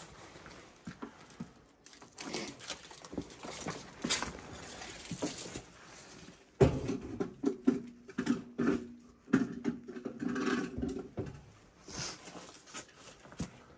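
Footsteps and rustling on a debris-strewn floor, with scattered clicks. A sudden bang comes about six and a half seconds in, followed by a few seconds of low wavering tones.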